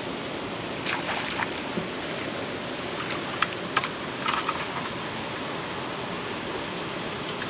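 Steady rush of river water in the tailwater below a dam, with a few short splashes and knocks about a second in and again from about three to four and a half seconds in as a catfish is landed in a net beside the boat.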